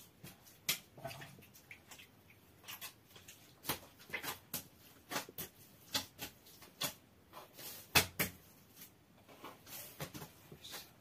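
Hands kneading bread dough in a large aluminium bowl: irregular short slaps and knocks as the dough is pressed, lifted and turned against the metal.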